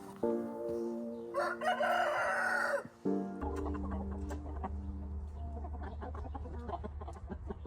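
A rooster crows once, about a second and a half in, a loud coarse call lasting about a second and a half, over soft sustained background music.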